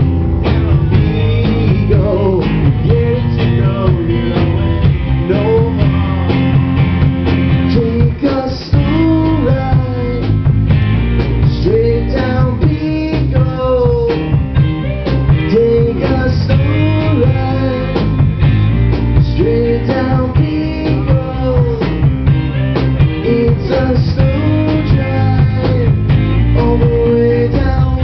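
Live band playing an upbeat rock song: a lead melody with bending notes over a steady bass and drum beat.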